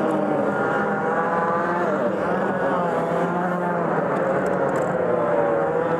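Racing kart engine running close to the microphone, its note rising and falling with the throttle as the kart goes off onto the grass.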